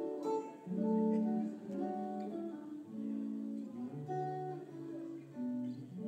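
Stratocaster-style electric guitar playing a slow melodic phrase of picked notes, each ringing for about half a second, moving to lower notes about two-thirds of the way through.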